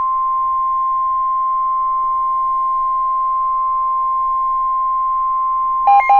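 NOAA Weather Radio 1050 Hz warning alarm tone: one steady, unbroken tone sounding ahead of a severe thunderstorm warning broadcast. Near the end, a rapid pulsing pattern of electronic beeps starts over it.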